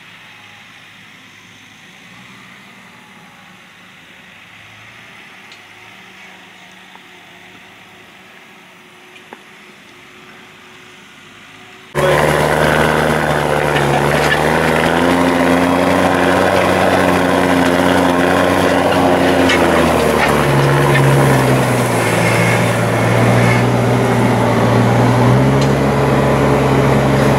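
Deutz-Fahr tractor's diesel engine working under load, pulling a disc harrow through stubble. It is faint at first, then suddenly much louder about twelve seconds in. The engine note rises a little, then drops back and runs steadily.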